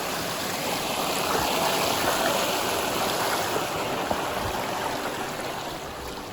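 Mountain stream water flowing and splashing, a steady rush that cuts in abruptly.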